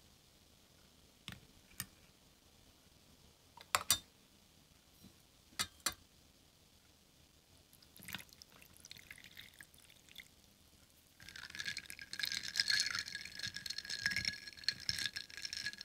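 Ice cubes clinking a few times in a glass tumbler, then water poured in over the ice. About eleven seconds in, the ice is swirled with a straw, rattling against the glass and making it ring; this is the loudest part.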